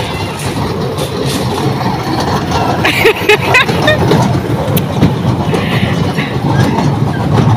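Children's ride-on train running around its small circular rail track: a steady rumble of its wheels and motor, with a few brief high squeaks about three seconds in.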